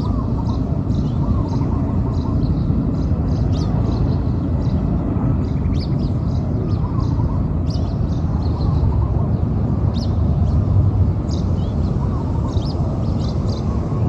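Small birds chirping in quick short notes again and again, over a steady low rumble.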